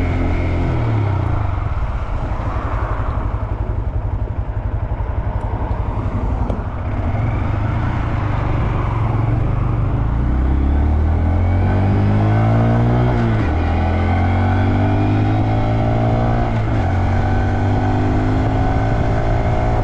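Honda Grom's small single-cylinder engine heard from the saddle. Its note falls as the bike slows at the start, runs low and uneven through the turn, then climbs as the bike accelerates hard. The pitch drops at an upshift about 13 seconds in and again about 17 seconds in, climbing again after each.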